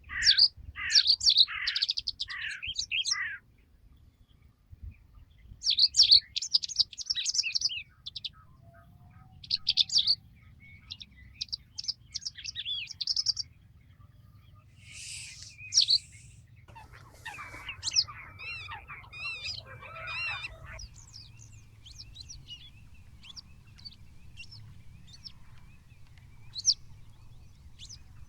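Several songbirds chirping and trilling in short, repeated bursts of quick high notes, with a denser burst of overlapping calls partway through, over a faint low rumble.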